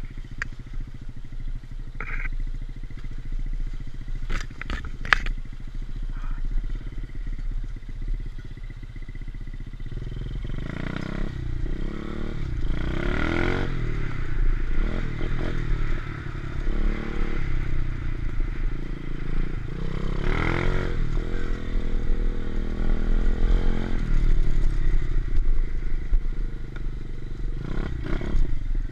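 125cc pit bike engine being ridden hard, its revs rising and falling as the throttle is worked. It runs at a lower level for the first ten seconds or so, with a few sharp knocks about four to five seconds in, then gets louder with repeated surges of revving.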